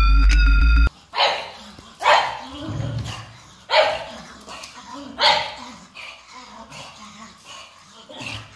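Short chiming music cuts off about a second in. Then a pug barks loudly four times, a second or so apart, followed by fainter, irregular sounds.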